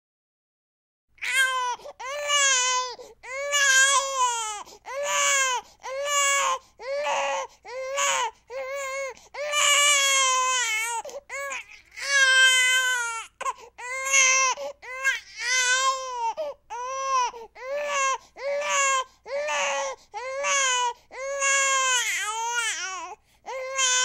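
Baby crying: silent for about a second, then a long run of short wails, about one a second, each arching up and then down in pitch.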